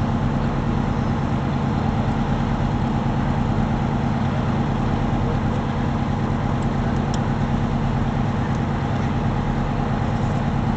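Fire truck's diesel engine running at a steady speed, a constant heavy drone, as it powers the pump feeding the aerial ladder's water stream.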